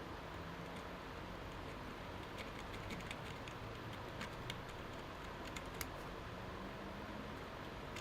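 A few faint, light clicks and taps from small handling on the workbench, scattered through the middle of the stretch, over a steady low hum and hiss.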